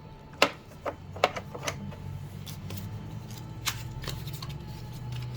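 Scattered sharp plastic clicks and taps from handling the postage meter and its bay on a Quadient IX-3 mailing machine, over a low steady hum.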